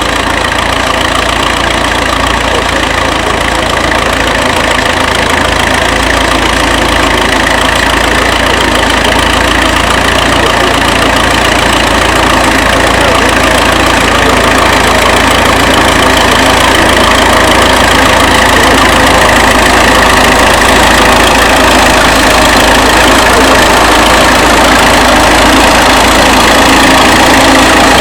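Four-cylinder engine of a 1935 Fordson tractor running steadily under way, getting slightly louder over the stretch.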